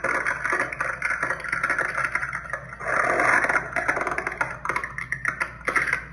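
Spirit Halloween Regan animatronic running its demo between spoken lines: rapid clattering clicks over a harsh, gritty noise from the prop, with a short break about two and a half seconds in before it comes back louder.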